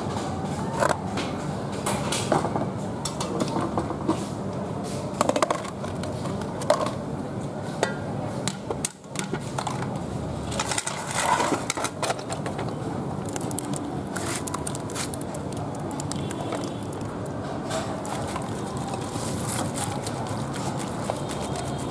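Land snail shells clattering and water sloshing as a gloved hand rubs and stirs them in soapy water in a stainless steel pot, with many sharp clicks of shell on shell and on metal. Near the end the washed snails rattle in a plastic colander.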